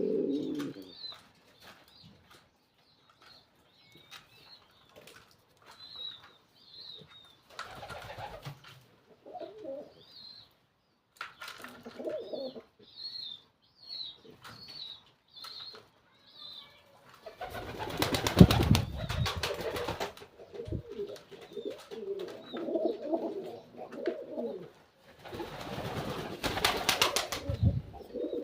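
Domestic pigeons cooing in repeated low phrases, with many short high chirps over them. Two loud noisy flurries, each two to three seconds long, come in the second half.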